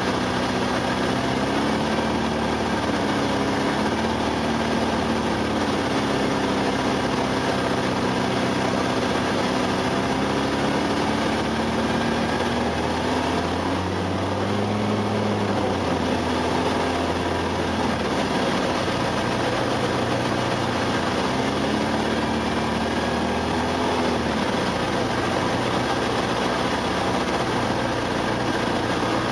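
Ultralight aircraft's engine and propeller running in flight, heard from the cockpit over a steady rush of wind. The engine note shifts up and down as power is adjusted on the landing approach.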